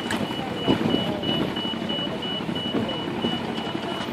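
A high electronic beep repeating rapidly at one steady pitch, over general background noise with faint distant voices.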